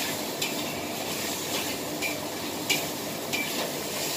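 Metal wok spatula scraping and clinking against a wok during stir-frying, several sharp clinks spread through, over a steady sizzle of frying food.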